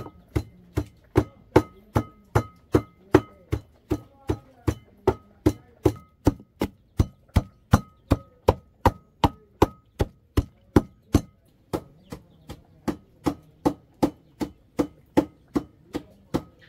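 Garlic with salt and oregano being pounded with a pestle in a mortar: a steady beat of about two and a half strikes a second, each with a short ringing note, a little softer for a moment about two-thirds through.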